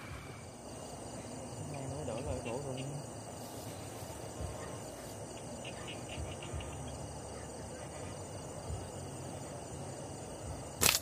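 Insects chirring steadily in the night. Near the end comes a single sharp snap: a slingshot being released at a target.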